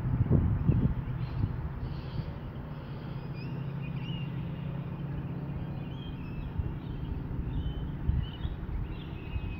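Small birds chirping now and then over a low rumble of wind on the microphone, with a steady low motor hum through the middle few seconds.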